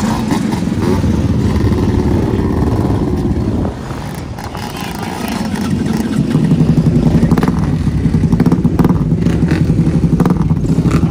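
Small engines of racing ride-on lawn mowers running in the pits. From about six seconds in, one close by runs louder with a steady, evenly pulsing beat.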